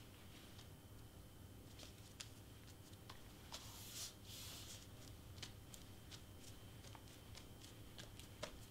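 Near silence with faint handling of cardstock: scattered light taps and a brief rustle about four seconds in as hands press and smooth paper pieces flat on a cutting mat.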